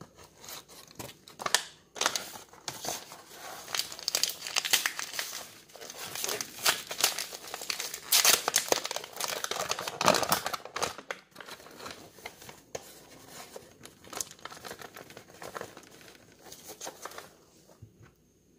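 Paper flour bag crinkling and tearing as it is handled and torn open, a long busy run of rustles and crackles that thins out near the end.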